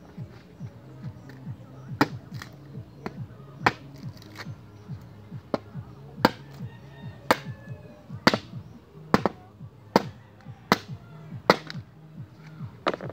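Machete blade chopping into a wooden pole, about ten sharp blows roughly one a second, over background music.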